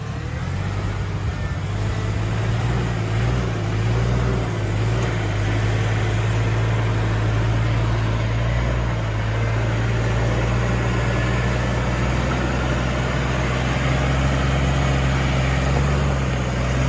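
Off-road vehicle engine running steadily at low revs: a low, even hum with a constant hiss above it, growing a little louder over the first couple of seconds.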